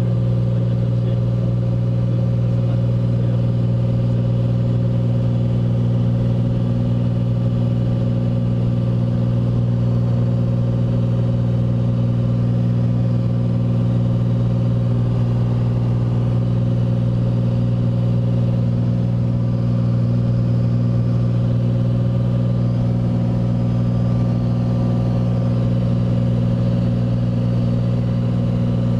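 Light aircraft's piston engine and propeller droning steadily in flight, heard from inside the cabin, a deep even hum with no change in pitch.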